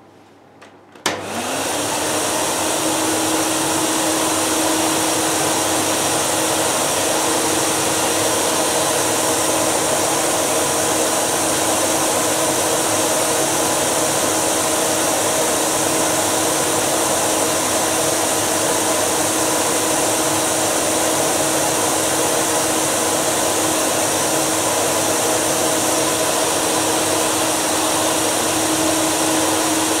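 Philips P87 Deluxe canister vacuum cleaner switched on with a click about a second in, its motor spinning up quickly and then running steadily with a constant hum tone over a broad rushing hiss. It reads about 80 dB on the meter.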